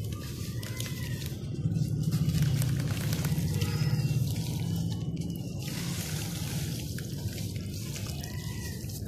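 Dirt-and-sand balls crumbling in water, with dripping, trickling and a fizzing crackle. It is louder between about two and four seconds in.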